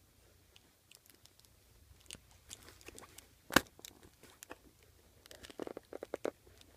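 Fingers picking at and prying open a cardboard advent calendar door: scattered scratches and crackles of cardboard, a sharp tap about three and a half seconds in, and a quick run of crackling near the end.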